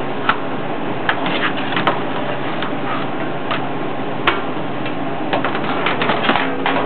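Scattered clicks and light knocks from items and machine parts being handled as a cold food vending machine is restocked, with a small cluster of clicks near the end, over a steady background noise.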